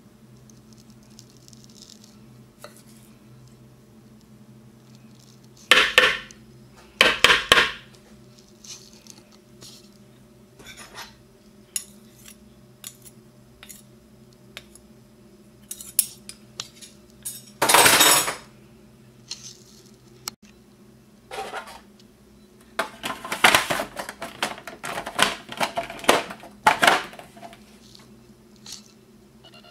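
A metal spoon scraping and clinking in a glass dish as a crumbly ground mixture is spooned into a food processor bowl. There are a few loud scrapes around six to eight seconds in, a strong one about midway, and a quick run of them near the end, over a steady low hum.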